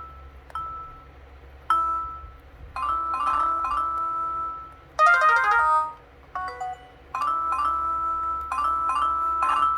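Built-in electronic sound effects of a U+ WPI-8800N VoIP telephone: a string of short synthesized chime-like jingles, separated by brief gaps, with a fast run of notes about five seconds in and a longer repeating sequence near the end.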